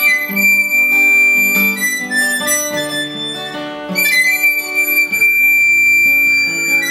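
Harmonica and guitar played together in a song, the harmonica holding long high notes near the start and again from about four seconds in, over plucked guitar notes.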